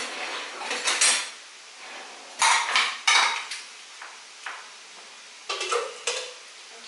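A metal spoon scraping and clinking against a glass baking dish and a plastic jug while scooping out baked tomatoes: a string of separate short clinks and scrapes, the loudest a little before the middle.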